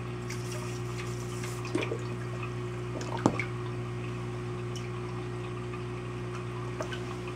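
Reef aquarium's pump and circulating water: a steady hum under the sound of moving water, with a couple of small drips or clicks about two and three seconds in.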